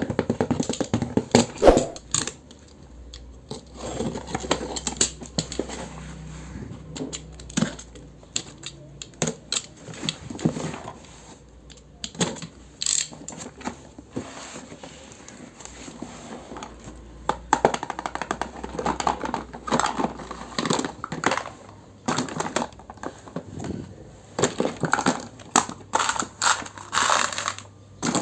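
Miniature toy kitchen pieces and their packaging being handled: irregular clicks, taps and light clinks, some in quick clusters.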